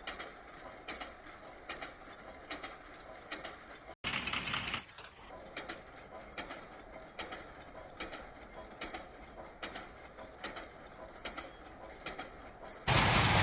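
Factory machinery clattering in an even rhythm, about two to three clicks a second, over a steady hum. A brief louder burst of noise comes about four seconds in, and a much louder steady machine noise starts near the end.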